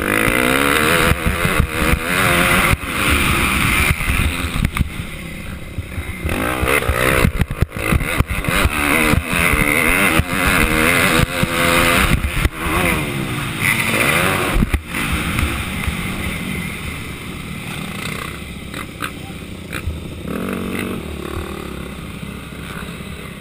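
Motocross bike engine revving up and down through the gears, heard from a helmet camera with rushing noise on the microphone. About fifteen seconds in the engine drops to a lower, quieter running as the bike slows.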